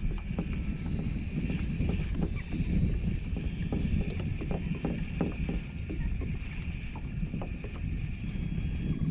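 Water lapping and splashing against a kayak hull in irregular small slaps over a steady low rumble.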